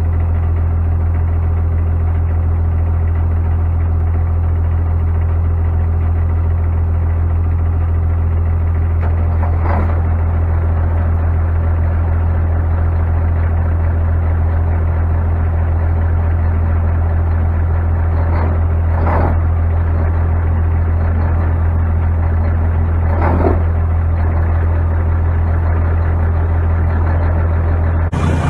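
Heavy diesel truck engine idling steadily, a low, even hum that does not change.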